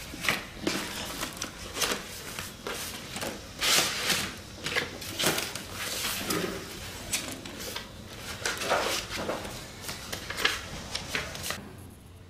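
Paper and cardboard folders handled on a desk: sheets rustling and being leafed through, with irregular soft knocks and slides, stopping shortly before the end.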